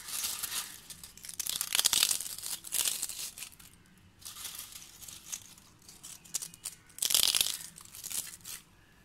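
Crisp fried papdi crackling and crunching as pieces are broken by hand and scattered over the chaat, in irregular bursts, the loudest about seven seconds in.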